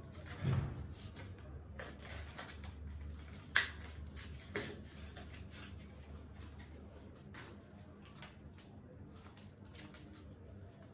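A small cardboard eyeliner pack being opened and handled by hand: faint rustling of card and packaging with a few sharp clicks and taps, the loudest about three and a half seconds in.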